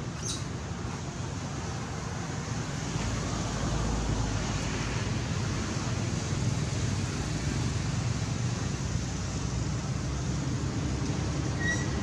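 Steady background rumble and hiss with no clear single source, growing slightly louder about three seconds in. A brief faint high chirp comes near the end.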